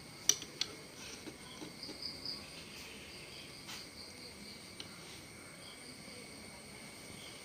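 Tool clicks and ticks on a motorcycle lever guard's mounting bolt as it is tightened: two sharp clicks in the first second, then a few faint ticks. Crickets chirp steadily in the background.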